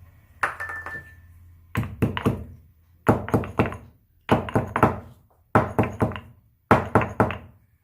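Whole cumin seeds being crushed in a mortar with a pestle: sharp knocking strikes in quick bursts of about four blows, a burst a little over once a second. The seeds are only meant to be cracked, not ground to powder.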